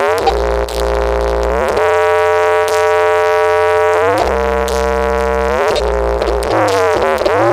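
Loud dance music played through a large sound system with eight double subwoofers: a buzzy, horn-like synth lead that slides up and down in pitch over heavy, sustained bass notes.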